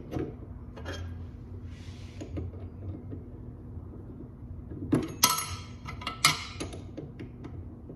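Metal drill bits clinking and rattling as they are handled, with three sharp, ringing clinks about five to six and a half seconds in, among lighter knocks.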